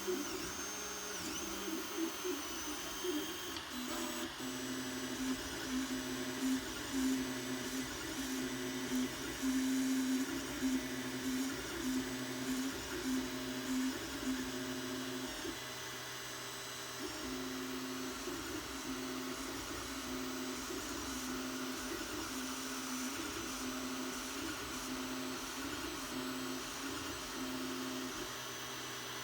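3D printer's stepper motors whining as the print head moves, the tone shifting pitch in steps and stopping and starting about every second.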